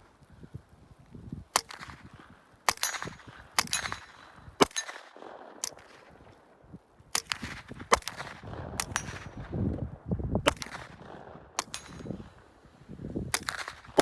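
Gunshots fired at steel targets, about a dozen sharp reports at uneven intervals of roughly a second, with a thin high ring after some of them from the struck steel.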